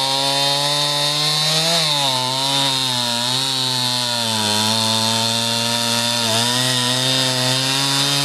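Chainsaw running steadily while cutting wood, its engine pitch dipping briefly about two, four and a half and six seconds in as the chain bites.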